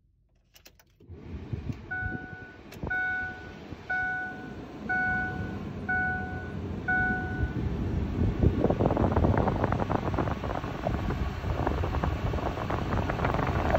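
Pickup truck dashboard warning chime sounding six times, about once a second, over a low rumble. About eight seconds in, a louder, rougher rumble with crackles takes over.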